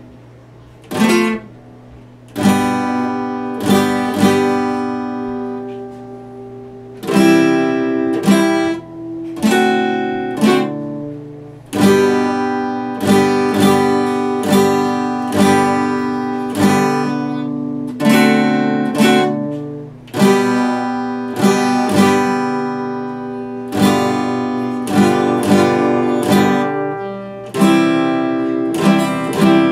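Epiphone acoustic guitar strummed in chords, each chord struck sharply and left ringing before it fades, with a brief lull about five seconds in before the strumming picks up again.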